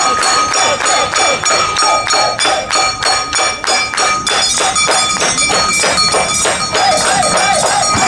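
Awa odori festival music: percussion strikes on an even beat of about three to four a second, with steady ringing tones and voices over it.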